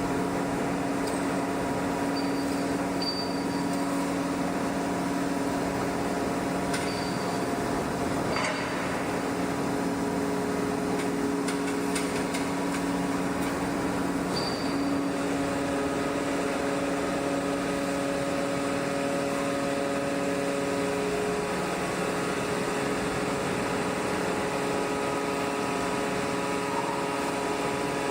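Steady hum of heavy forging-shop machinery, with several fixed tones that shift slightly partway through, and a few faint knocks about seven to nine seconds in.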